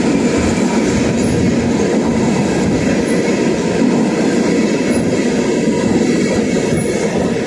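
Freight train of steel gondola cars rolling past close by at steady speed: a continuous rumble and rattle of wheels on the rails.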